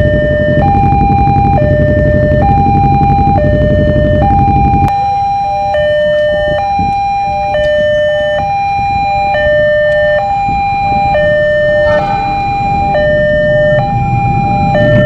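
Railway level-crossing warning alarm sounding: an electronic two-tone chime alternating between a high and a low tone, each held just under a second. For the first five seconds a steady low rumble sits underneath.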